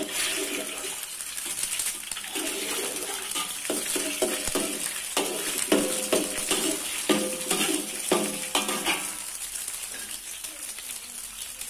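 Two eggs sizzling in hot oil in a metal wok while a metal spatula scrapes and knocks against the pan, breaking them up into scrambled egg. The scraping comes in a quick run of strokes through the middle and thins out near the end.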